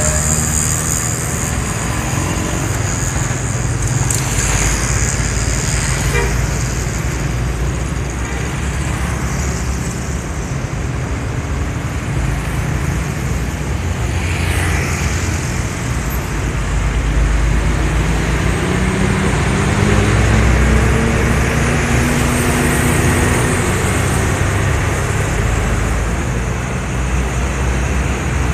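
Steady road traffic, with cars, motorcycles, buses and trucks passing close by. In the second half, a heavy vehicle's engine rises in pitch as it speeds up.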